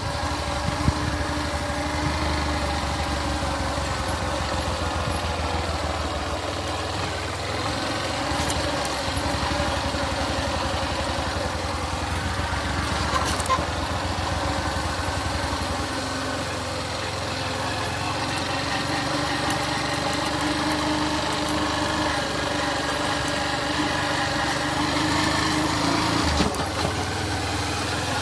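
A small engine running steadily for the whole stretch, its pitch drifting slowly up and down.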